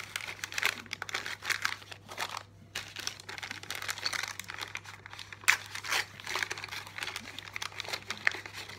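Crinkling and tearing of a small plastic blind-bag packet as it is torn open and handled, an irregular run of crackles with a sharp snap about five and a half seconds in.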